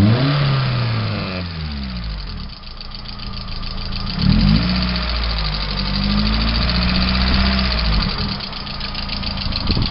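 VAZ-2112 engine revved and let fall back twice: it drops from a blip at the start, rises again about four seconds in, holds, and falls back near the eight-second mark, with a fast, even ticking knock under it. The knock comes from the cylinder head; the owner finds it grows as the engine warms and oil pressure falls, and it has persisted despite new hydraulic lifters, oil and filter.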